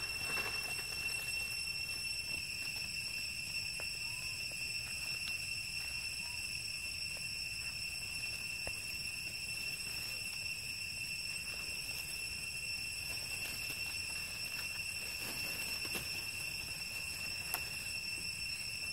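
Steady, high-pitched insect drone, unbroken throughout, with a few faint rustles and ticks from movement in dry leaves.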